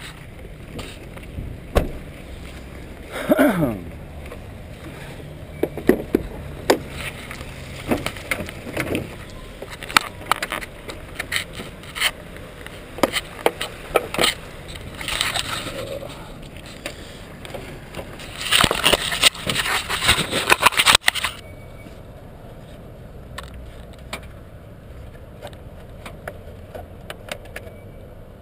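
Irregular knocks, clicks and scrapes of things being handled around a pickup truck, with a longer, louder stretch of scraping about two-thirds of the way through that stops abruptly.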